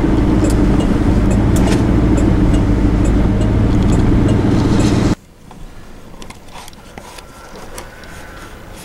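Steady engine and road noise of a vehicle being driven, cutting off abruptly about five seconds in to a much quieter background with scattered light clicks.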